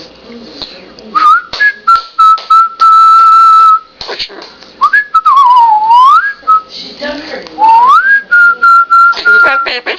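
Loud, pure-toned whistling: a note that glides up and holds steady, then a swoop down and back up in the middle, then another rise to a long held note, with short clicks between the phrases.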